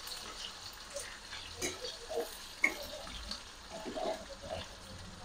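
Sliced onions sizzling in hot oil in a metal kadai, with a metal spatula scraping and clicking against the pan as they are stirred now and then.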